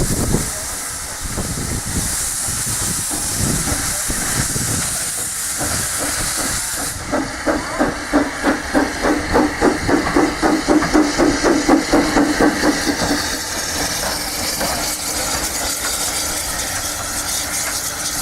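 Steam Rail Motor No. 93's vertical-boiler steam engine: a steady hiss of steam, then, about seven seconds in, a run of quick, even beats, about three a second, lasting some six seconds before easing back into running noise.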